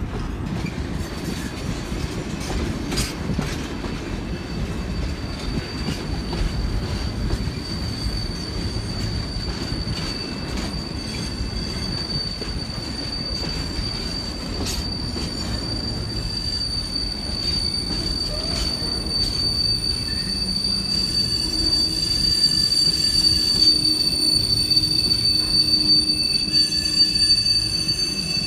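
Freight train wagons rolling slowly through a crossover into a passing loop, the wheels giving a steady high-pitched squeal, with more squeal tones joining about three quarters of the way through. Wind buffets the microphone underneath.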